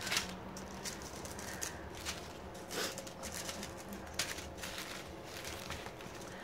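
Plastic bags and plastic-wrapped rolled canvases rustling and crinkling as they are moved about by hand, in short irregular bursts.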